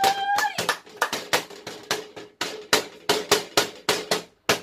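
Hands slapping on a metal baking tray and clapping, sharp strikes at about three a second. A held high-pitched note ends about half a second in.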